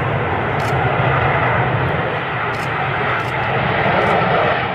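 B-2 Spirit stealth bomber's four turbofan jet engines running as the aircraft rolls along the runway: a steady jet rush.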